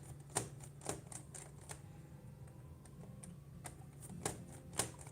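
A run of sharp, irregular clicks from a Phillips screwdriver working the screws out of a laptop's plastic back panel, over a steady low hum.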